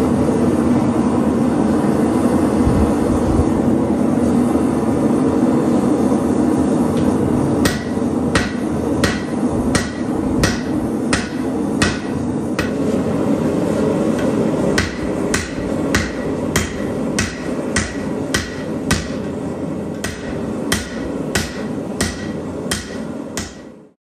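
Propane forge burners run with a steady rushing noise. From about a third of the way in, a hand hammer strikes hot steel on an anvil in a steady rhythm of sharp, ringing blows, about two a second: an old ball peen hammer head being forged into a hatchet. The sound cuts off abruptly near the end.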